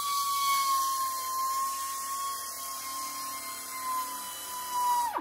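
A handheld high-speed rotary power tool running with a steady high whine, its pitch dipping slightly just as the sound cuts off at the end.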